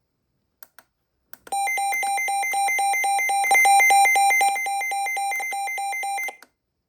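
Midland WR-400 NOAA weather radio alert siren: a high electronic tone beeping rapidly, about five pulses a second. It follows a few button clicks, starts about a second and a half in and cuts off abruptly near the end.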